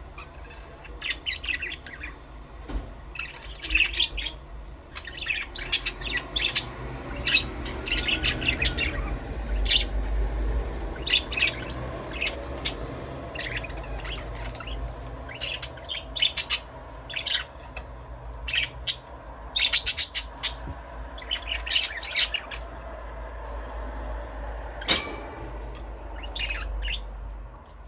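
Budgerigars chirping and chattering in a stream of short, quick calls with the odd squawk, over a low steady hum.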